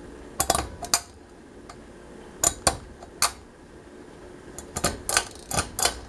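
A series of sharp clicks and light metallic taps at irregular intervals, a few near the start, a pair about halfway, and a denser run in the last second and a half.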